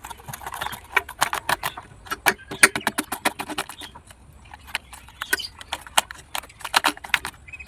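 A rapid, irregular series of sharp clicks and taps, densest in the first half and thinning out briefly about four seconds in.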